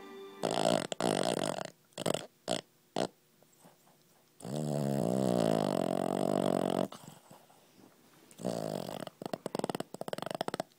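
Boston terrier snoring in separate breaths. There is a loud snore about half a second in, then a few short snorts, then a long snore with a wavering pitch in the middle, and a fluttering snore near the end.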